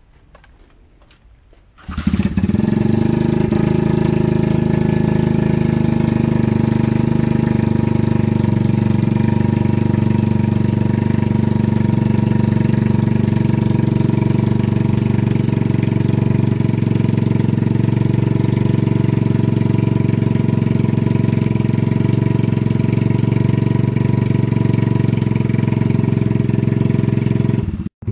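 Lifan 125 single-cylinder four-stroke engine in a Honda XR70 pit bike, started from cold: it catches about two seconds in, then runs steadily at idle.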